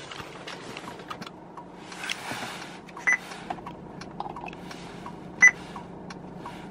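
Aftermarket Android touchscreen car stereo giving two short beeps as it is tapped, the second louder, over a steady low hum with small handling clicks and a brief rustle about two seconds in.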